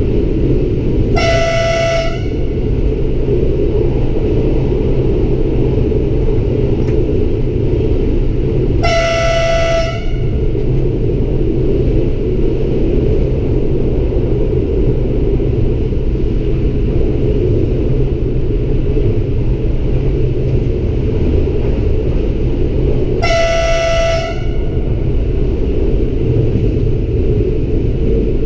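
Alstom Coradia LINT 41 diesel railcar heard from the cab, running with a steady low rumble of engine and wheels on rail. Its horn sounds three short single-pitched blasts of about a second each: near the start, about a third of the way in, and past the middle.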